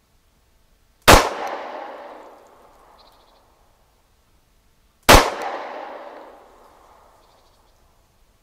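Two single shots from a 9mm Glock pistol, about four seconds apart, each followed by a long echo that fades over about two seconds.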